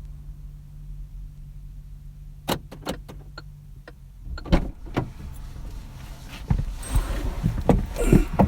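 A steady low hum, then scattered sharp clicks from a few seconds in and a couple of louder knocks about halfway, turning into busier rustling and knocking handling noise near the end.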